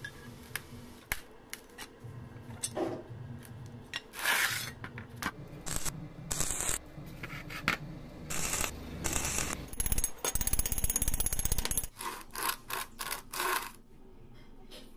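Metal workshop handling: sharp clinks and knocks of steel parts, with short scraping passes and a quick rattling stretch about two-thirds of the way through.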